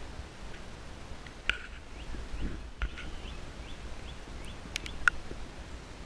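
A few sharp clicks and snaps from handling and footsteps, loudest about five seconds in, over a low rumble. Between about two and four seconds in a bird gives a run of short, faint rising chirps, about three a second.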